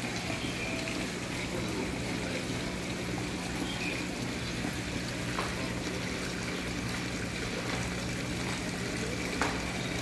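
Steady rush of running water with a low hum underneath, and a faint tick near the end.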